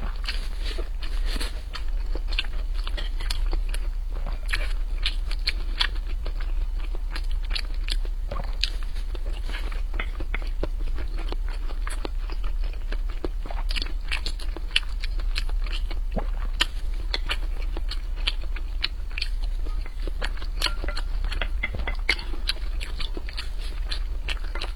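Close-miked chewing and wet mouth clicks of someone eating mapo tofu over rice, irregular and continuous, over a steady low hum.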